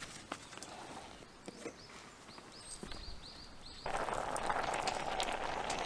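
Wood fire crackling with scattered sharp clicks while a bird gives a quick run of high chirps. About four seconds in, a louder steady hiss full of crackles sets in.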